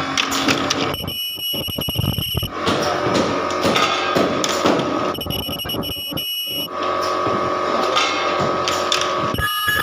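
Ultrasonic plastic welder sealing bottle caps: a shrill, steady high whine lasting about a second and a half each weld cycle, about every four seconds, over a running machine background.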